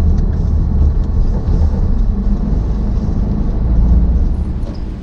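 Motor vehicle running, a steady low rumble that eases off near the end.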